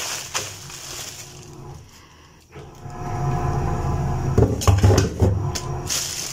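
Plastic bag rustling and crinkling as a hand digs through raw pork hocks inside it. About halfway a low hum sets in, and a few dull knocks of the pieces against each other come near the end.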